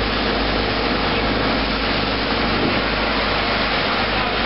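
Steady drone of running machinery, a constant noisy hum that does not change.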